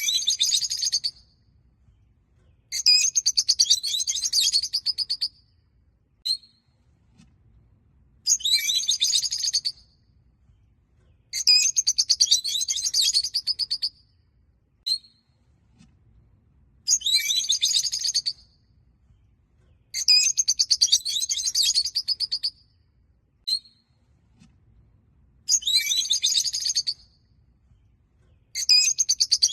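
Peach-faced lovebirds chirping in rapid, high-pitched bursts of a second or two, about every three seconds, with a single short chirp in some of the gaps.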